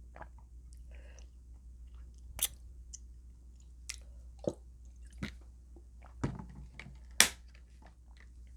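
Close-miked chewing and mouth sounds of a person eating: a string of wet smacks and clicks at irregular intervals, one sharper smack about seven seconds in.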